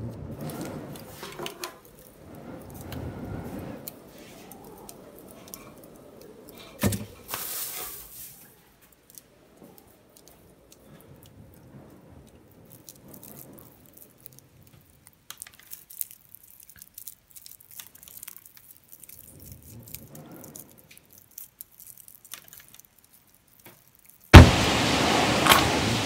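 Wind gusting in low swells at first, and a single knock. Then faint dry crackling as a ripe wheat ear is rubbed between the fingers to thresh out the grain. Near the end a match is struck and flares with a sudden loud hiss that fades over about two seconds.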